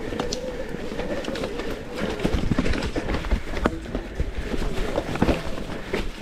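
Electric mountain bike riding a rough trail: the motor's steady whine rises slightly and fades out in the first couple of seconds, then the bike rattles and knocks over bumps, with tyre and wind rumble underneath.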